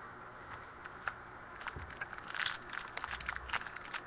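Foil wrapper of a trading-card pack crinkling and tearing as the pack is opened. The first half is quiet; a dense run of sharp crackles starts about halfway through and keeps building.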